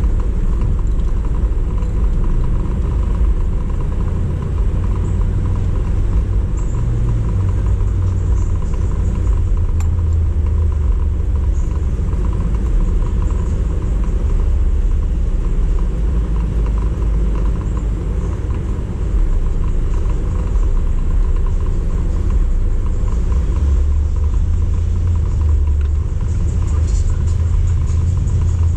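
Motor vehicle running with a steady low rumble, even throughout.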